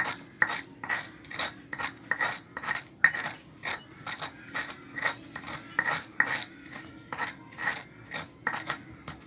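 Garlic cloves being pounded and ground with a pestle in a cobek mortar: short rasping, scraping strokes at about two to three a second.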